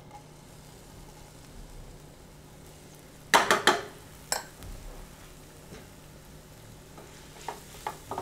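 Chopped onion and garlic frying in hot oil in a pan, a steady sizzle. About three and a half seconds in come a few loud sharp clatters of kitchen utensils, and near the end a few lighter clicks as a spatula stirs the onion.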